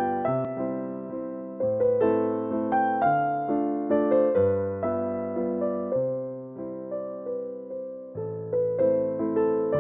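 Background music played on a keyboard: piano-like notes struck and fading over low bass chords, with a new phrase starting every few seconds.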